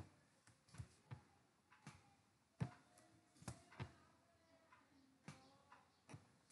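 Faint, irregular clicks of a computer mouse and keyboard, about a dozen spread over several seconds, in an otherwise quiet room.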